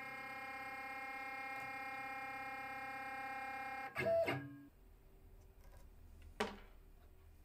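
Stepper motor of a Sainsmart Genmitsu PROVerXL 6050 Plus CNC whining steadily as the Z axis lowers slowly in a probing move. It stops abruptly about four seconds in when the end mill touches the probe plate, with a brief louder tone-like sound at that moment. About two seconds later there is a single sharp click.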